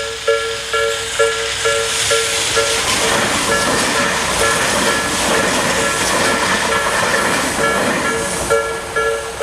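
Japanese railway level-crossing alarm of the Tobu Nikko Line type (Tobu sound B), an electronic two-note bell dinging about twice a second. A Tobu 500 series Revaty express train passes with a steady rushing running noise that half buries the bell from about three to eight seconds in. The bell stops near the end.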